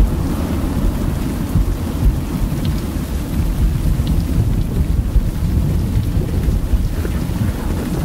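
Recorded thunderstorm sound effect from a lightning-simulator CD: a continuous low rumble of rolling thunder with steady rain.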